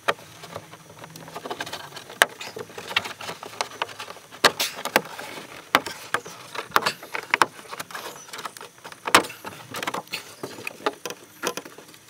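Plastic trim tool prying an Audi A5 B8 rear parcel-shelf speaker grille loose: an irregular run of sharp plastic clicks and knocks as the grille's clips work free and the grille rattles.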